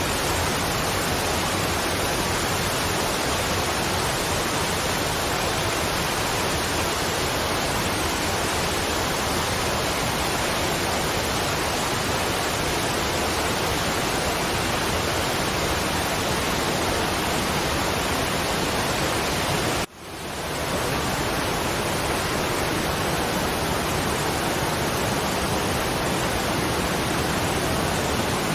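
Waterfall, a steady even rush of falling water. About twenty seconds in it cuts out for an instant and fades back up within a second, like a loop point in the recording.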